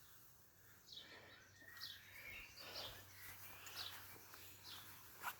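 Faint birdsong: a songbird repeating short, high, falling notes about once or twice a second, starting about a second in.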